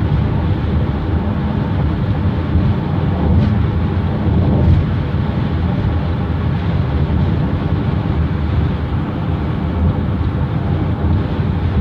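Steady tyre and road noise of a car driving on the interstate, heard inside the cabin as a low, even rumble, with a couple of faint ticks near the middle.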